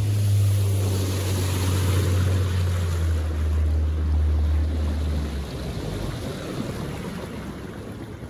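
Boat motor running with a low drone over the rush of water and wind on the microphone; the drone drops in pitch about three seconds in and stops a little past halfway, leaving the water and wind, as the boat slows.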